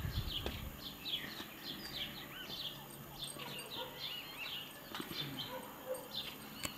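Birds chirping: a busy, steady run of short, quick calls, each sliding up or down in pitch.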